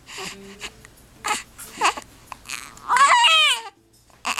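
Baby hiccuping: short, sharp vocal hics about every half second to a second, with a longer whiny cry about three seconds in.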